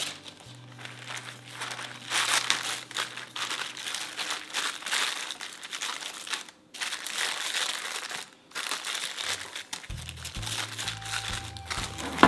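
Plastic cling wrap crinkling as hands smooth and press it down onto the surface of chocolate custard cream in a bowl, with two brief pauses in the middle.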